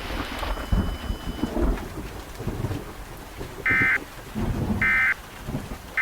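Thunder rumbles over rain. Then come three short, loud bursts of Emergency Alert System digital data tones, about a second apart: the end-of-message signal that closes an EAS activation.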